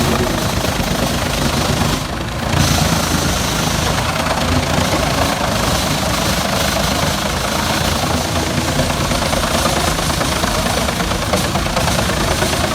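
Wood chipper running, a loud, dense mechanical noise with a brief break about two seconds in.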